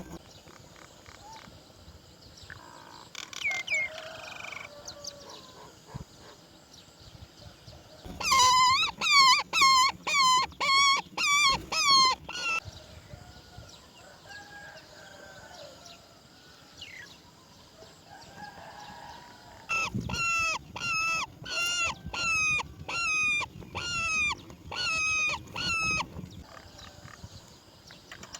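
Roller calls in two runs of rapid, evenly repeated calls, each about three a second: one run of about ten calls starting about eight seconds in, another of about a dozen starting about twenty seconds in. Between them, fainter scattered calls.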